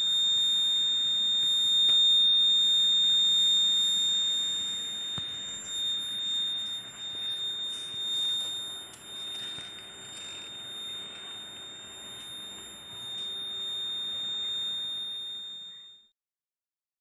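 Buzzer of a homemade rain detector alarm sounding one continuous, steady high-pitched tone, the alarm signal that water has reached its sensor. It cuts off suddenly near the end. A steady hiss runs beneath it and grows quieter.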